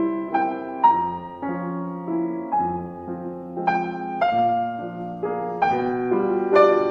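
Background piano music: a slow, gentle melody over sustained chords, each note struck and fading.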